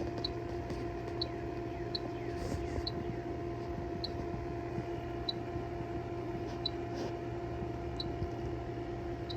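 Electronic refrigerant leak detector ticking slowly, about once a second, over a steady low hum: its idle search rate, finding no refrigerant at this spot.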